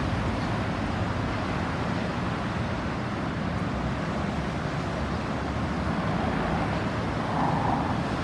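Steady road traffic noise of vehicles driving past, with a slightly louder pass near the end; no siren sounds.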